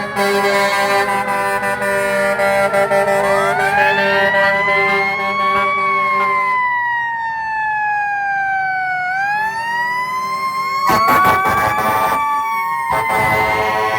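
Emergency vehicle sirens wailing, several overlapping tones sliding slowly up and down over a few seconds each. Two short bursts of rushing noise come near the end.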